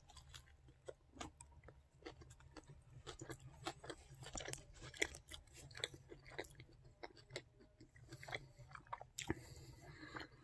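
A person chewing a mouthful of Burger King Impossible Whopper: faint, irregular wet clicks and smacks of the mouth working.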